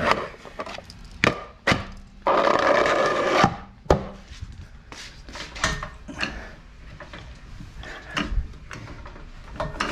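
Sharp knocks and a scraping slide of about a second from wheel chocks and a floor jack being handled and set under a car.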